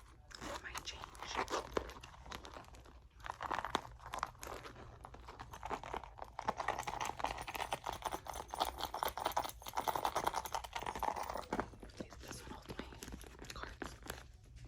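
Close-up ASMR handling of a Gucci leather handbag and its contents: dense, irregular tapping and crinkly rustling with brief lulls.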